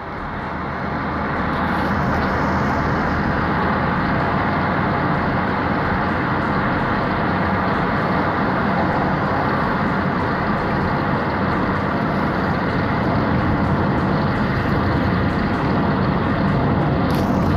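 Steady road and engine noise inside a moving car, fading in over the first two seconds and then holding even.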